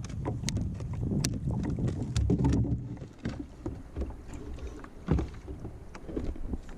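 Wind buffeting the microphone over water sloshing against a kayak's hull, with scattered light clicks and a heavier knock about five seconds in.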